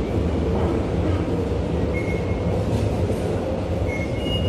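Subway station concourse ambience: a steady low rumble, with short electronic beeps from the ticket gates about two seconds in and twice near the end.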